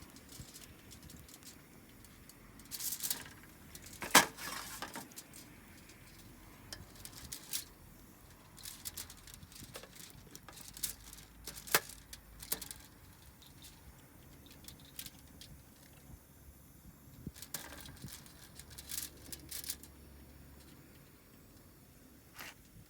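Irregular sharp clicks and light metallic clinks of cookware and utensils being handled. The loudest knock comes about four seconds in, with quieter stretches between.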